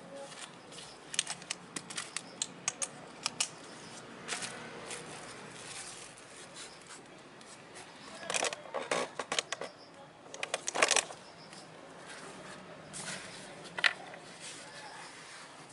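Small clicks, taps and knocks of hand tools and scooter brake parts being handled: scattered clicks at first, then two denser clatters, the louder about eleven seconds in, and one sharp click near the end.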